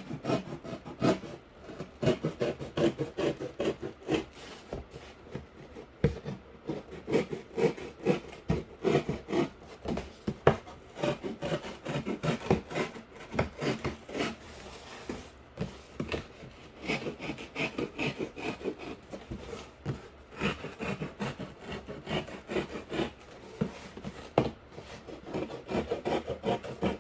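Cardboard being cut and scraped with a knife: a long run of quick, irregular back-and-forth sawing strokes.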